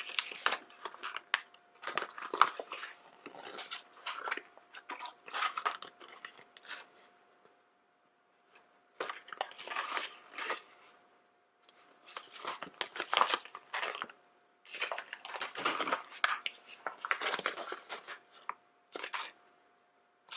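Paper collector's flyer rustling and crinkling in repeated bursts as it is handled and looked through, with short pauses between, over a faint steady hum.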